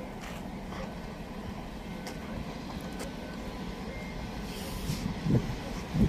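Distant train approaching along the line: a low steady rumble that grows a little louder, with a couple of low wind thumps on the microphone near the end.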